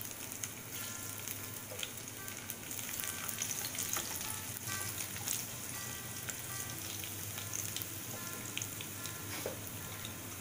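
Crushed garlic sizzling in hot oil in a non-stick kadhai, a steady frying hiss with scattered crackling pops, stirred with a spatula.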